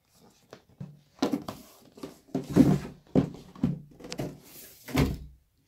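Cardboard boxes being handled: the laptop's retail box is slid out of its brown shipping carton and set down on a table, giving an irregular run of soft knocks, scrapes and rustles.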